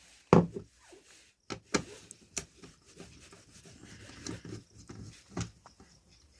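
Scattered light clicks and knocks with soft rubbing, from handling the plastic casing and parts of a home theatre unit during disassembly; the sharpest knock comes near the start.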